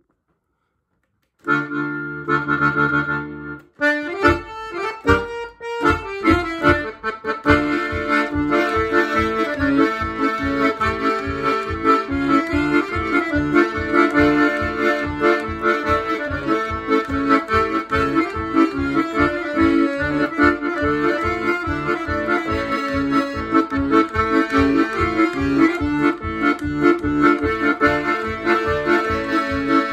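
Scandalli piano accordion playing a Ukrainian kolomeyka. After a second and a half of silence comes a held chord, then a few short notes, and from about six seconds in a brisk, steady tune over a regular beat in the bass.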